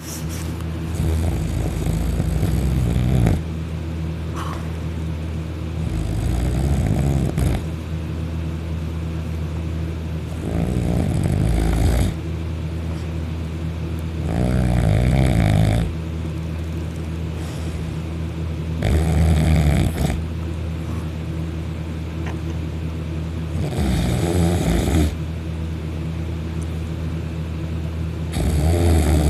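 Loud snoring from a sleeper in deep sleep: seven long snores of about one and a half to two seconds each, coming roughly every four to five seconds.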